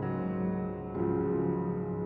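Background music: soft piano or keyboard chords held and changing about a second in.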